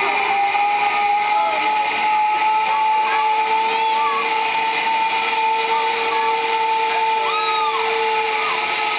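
Zip line trolley pulleys whining along the steel cable as a rider crosses: a steady two-note whistle that wavers only slightly in pitch, with a few short faint chirps over it.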